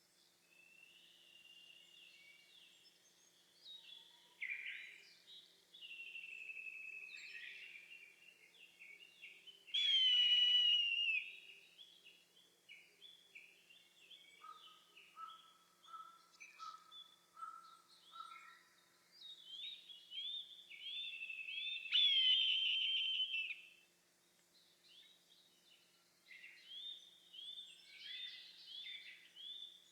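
Eastern buzzard giving two loud, drawn-out calls that slide down in pitch, about twelve seconds apart. Between them, small songbirds sing steadily with short chirps and repeated notes.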